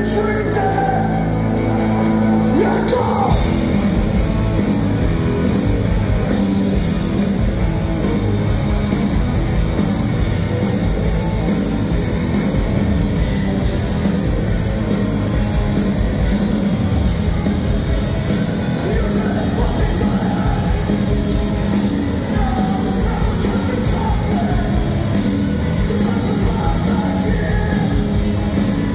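Live post-hardcore band playing loud: a held chord rings for the first few seconds, then guitars, bass and drums come in together, with yelled vocals over them, heard from the audience.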